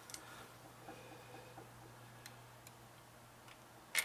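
Light metallic clicks of small parts being handled inside an open PC case: a few faint ticks spread apart, then one sharper click near the end. A steady low hum runs underneath.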